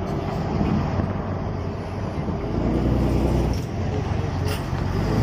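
An engine running with a low, steady rumble and a deep hum that grows stronger about halfway through.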